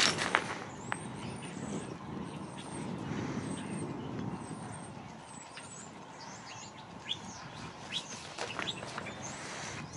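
Outdoor ambience of small birds chirping, with a low rumble that swells and fades about midway and a few sharp clicks in the first second.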